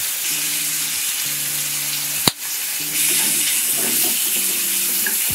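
Peeled shrimp sizzling in butter in a frying pan, a steady hiss that grows a little louder about three seconds in, with one sharp knock a couple of seconds in.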